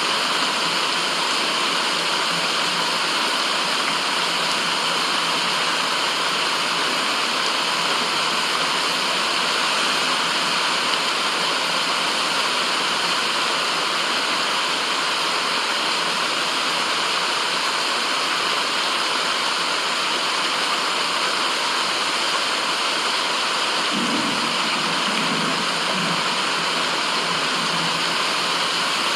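Steady, unbroken rushing of running water, like a waterfall or fast stream, used as a white-noise ambience. A few faint low bumps come about three-quarters of the way through.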